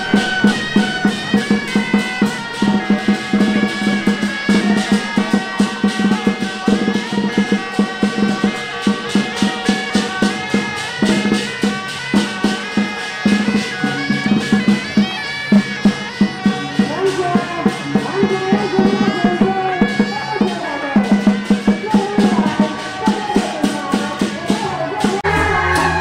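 Temple procession band music: a reed horn (suona) plays a melody over a steady beat of drums and gongs, about two or three strikes a second. Near the end a different, lower-pitched music takes over.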